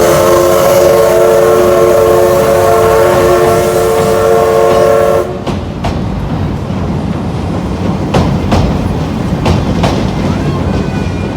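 Train whistle sounding one long, steady blast for about five seconds, then cutting off. After it comes the rumble of a train running, with irregular clicks of wheels over rail joints.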